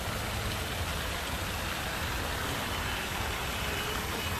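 Steady hiss of falling water with a low rumble underneath.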